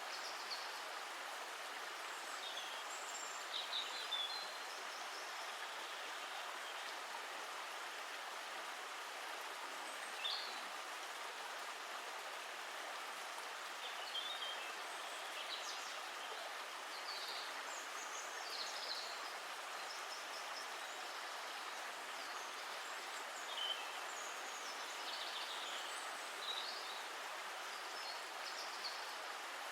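A stream of water flowing steadily, with birds chirping briefly now and then.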